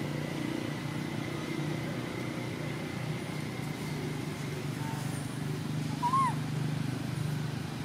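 A steady low engine hum, with one short rising-and-falling squeak about six seconds in.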